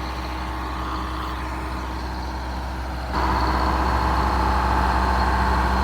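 Heavy machinery engine running steadily with a low hum; about three seconds in it steps up louder, with a higher tone added.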